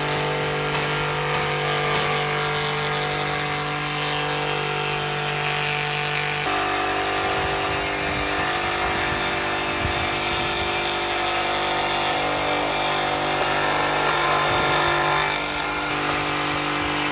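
Homemade belt-driven table saw, powered by a three-phase electric motor, running and cutting wood: a steady motor-and-blade whine with the rasp of the blade going through the boards. The tone shifts about six seconds in and again near the end.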